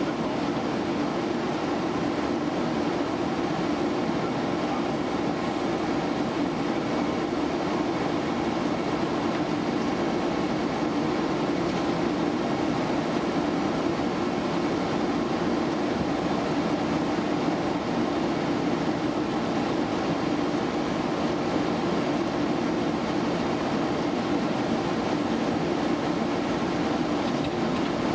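Steady cabin noise in a Boeing 737 cockpit in flight: a constant rush of airflow and air conditioning with a low hum, unchanging throughout.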